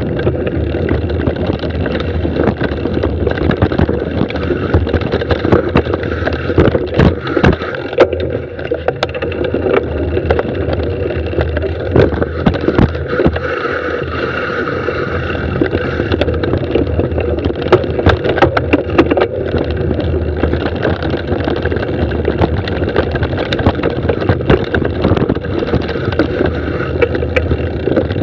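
Mountain bike running down a dirt singletrack: a constant rumble of tyres over dirt and roots, with frequent sharp knocks and rattles from the bike over bumps.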